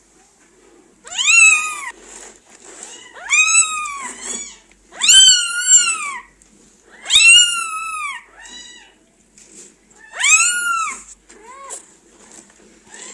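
Day-old newborn kittens mewing: a string of high-pitched mews, each rising and then falling, one every second or two, some short and faint between the louder ones.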